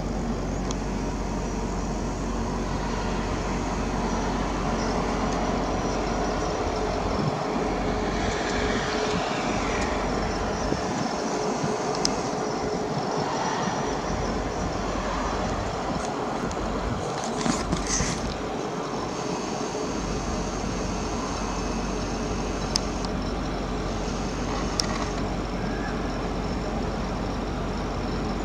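Steady distant rumble of engines, with a few faint clicks.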